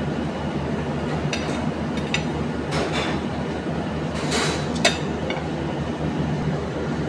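Steady low machine hum of kitchen equipment, with a few light clinks and a short scrape of metal serving tongs on a ceramic plate. The sharpest clack comes just under five seconds in.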